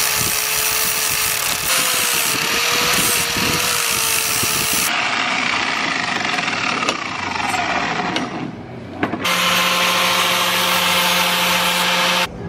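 Handheld angle grinder grinding the end of a small steel tube to shape it, its motor whine dipping as the disc bites the metal. About six seconds in, the whine falls as the grinder winds down. It runs again near the end and stops abruptly.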